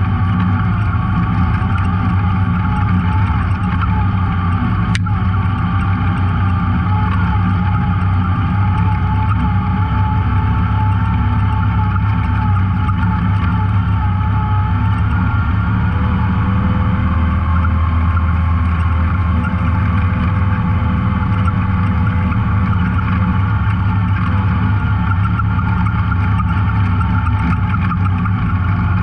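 Off-road vehicle engine running steadily under way on a dirt trail, its pitch shifting only slightly, with one sharp click about five seconds in.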